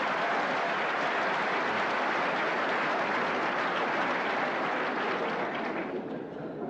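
Large audience laughing and applauding, fading away near the end.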